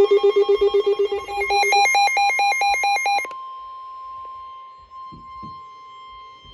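Electronic weather-radio alert: a loud, rapidly pulsing warble of beeps that shifts pitch partway through and cuts off suddenly about three seconds in. It is followed by the steady, quieter 1050 Hz NOAA Weather Radio warning alarm tone, which signals that a warning is about to be read.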